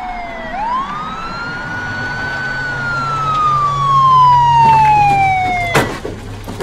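Police car siren wailing: a falling tone that swoops back up about half a second in, then slides slowly down again. A sharp knock comes near the end.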